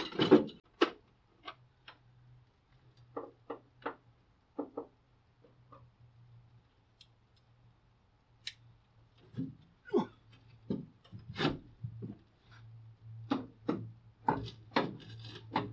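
Hand tools clicking, knocking and scraping against the bare metal body shell of a stripped Datsun 240Z as components are undone and removed. The hits come in scattered clusters, sparse through the middle and busier toward the end, over a faint steady low hum.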